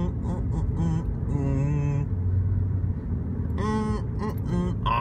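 Steady low rumble of a car driving, heard from inside the cabin, with short stretches of a person's voice over it.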